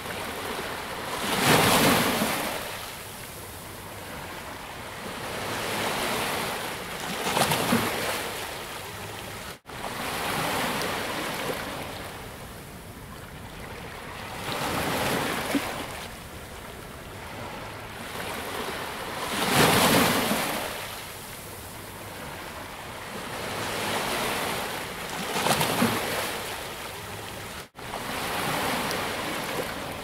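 Ocean surf breaking and washing up a beach, a wave surging in every five or six seconds over a steady hiss of water, the loudest breaks about two seconds in and about twenty seconds in. The sound cuts out for an instant twice.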